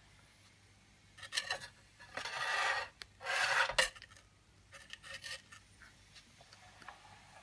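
Metal scraping and rubbing in three short bursts as the burner of a vintage toy steam engine's firebox is moved by its wire handle, followed by a few light clicks.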